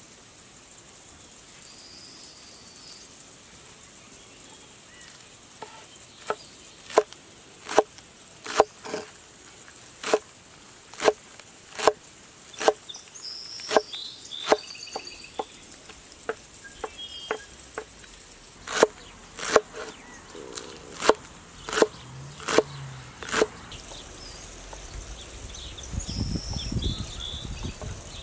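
Kitchen knife chopping green onions on a wooden cutting board: sharp knocks of the blade striking the board, about one a second, starting a few seconds in and stopping a few seconds before the end. Birds chirp faintly in the background.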